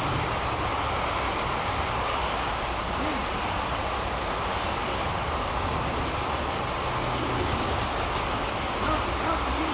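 The wheels of a long train of 1:29-scale Gunderson container well cars roll along outdoor garden-railway track with a steady rolling rumble, and a few sharp clicks come about three-quarters of the way through.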